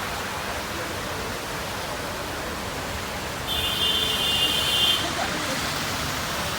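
Heavy rain falling with a steady hiss of rain and running water. About three and a half seconds in, a high steady tone sounds for about a second and a half.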